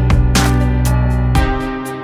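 Background music: electronic instrumental with held notes and a steady beat of drum hits, the bass dropping out about one and a half seconds in.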